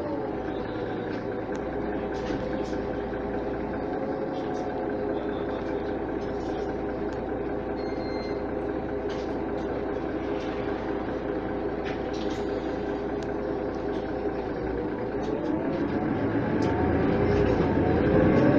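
Mercedes-Benz O 530 Citaro bus's OM 906 hLA six-cylinder diesel idling steadily, heard from inside the passenger cabin, with small rattles and clicks. About fifteen seconds in, the engine revs up and grows louder as the bus pulls away.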